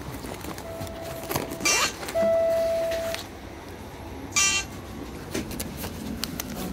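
Electronic tones on board a TTC streetcar arriving at a stop: a short steady beep, then a longer, louder beep about two seconds in, and a brief ringing chime about four and a half seconds in, over the low rumble of the car.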